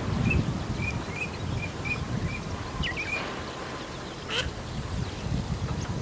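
Female Eurasian teal calling: a run of short, high quacks at about two a second for the first two and a half seconds, a few more around three seconds in, then one louder, sharper call about four and a half seconds in.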